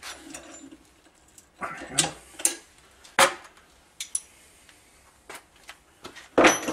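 Metal bracket parts clanking and clinking against each other and the jack plate as they are handled and fitted: about half a dozen sharp metallic knocks, some ringing briefly, the loudest near the end.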